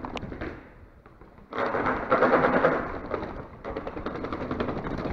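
Mountain bike being ridden over rough ground: a dense, rapid crackling rattle that starts about a second and a half in.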